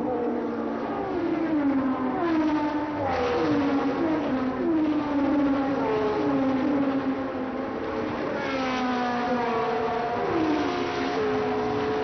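1976 Formula 1 cars running at racing speed one after another, their engine notes repeatedly sliding down in pitch as each car goes by or changes gear.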